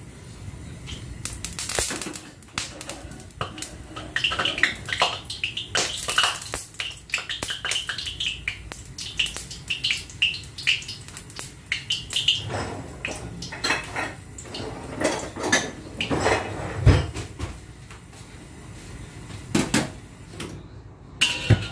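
Wet black steel wok heating on a gas burner: a metal clank as it is set on the grate, then a long run of sharp crackles and ticks as the water on the pan spits and dries off.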